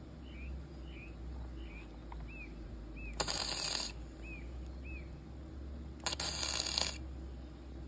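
Stick-welding arc struck twice, each a short burst of hiss lasting under a second, about three seconds in and again about six seconds in. These are tack welds fixing a steel rebar along an excavator's track roller frame as a guard to keep the track from coming off.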